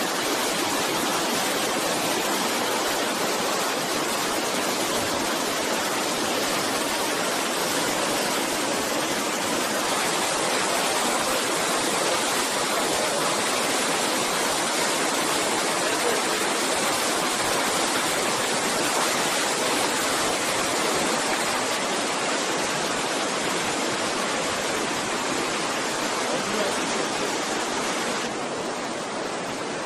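Stream water rushing and cascading over rocks: a steady, unbroken rushing noise.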